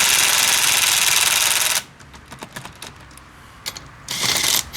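Ridgid subcompact 3/8-inch impact wrench hammering as it drives a lug nut tight in first gear. It stops after about two seconds, and a short second burst comes near the end.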